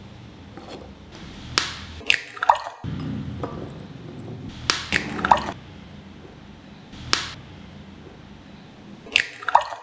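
Chicken eggs being cracked against a glass bowl and dropped in: sharp taps in little groups a few seconds apart, some with a short glassy ring.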